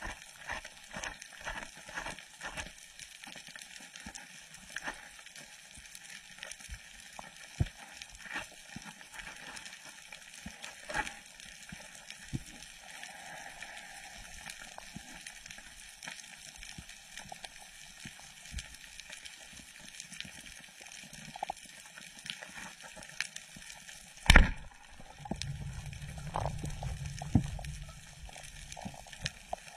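Water sloshing and gurgling, with many small scattered clicks. A sharp knock comes about 24 seconds in, followed by a low rumble for about three seconds.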